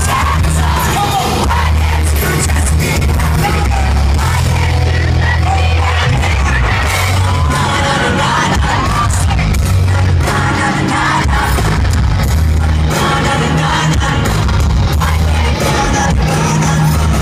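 Pop-punk band playing live, heard loud from inside the crowd: electric guitar, bass and drums with singing, and yells from the audience.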